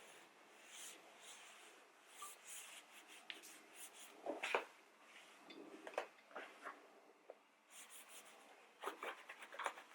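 Faint, irregular rubbing and scuffing of a towel wiping a plastic car headlight lens clean, with a few sharper ticks; the loudest scrub comes about halfway through.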